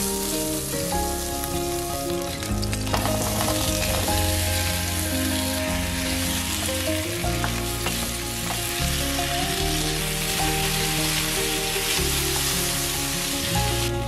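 Fat sizzling steadily in a nonstick frying pan as sliced potatoes fry and are stirred with a wooden spatula, over background music with bass notes.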